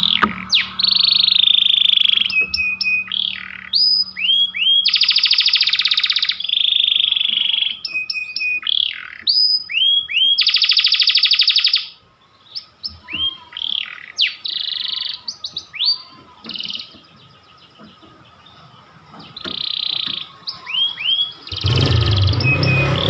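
Canary singing: long, fast rolling trills alternate with rising whistled chirps. The song thins to scattered notes midway, then picks up again. Near the end a louder, noisier passage comes in.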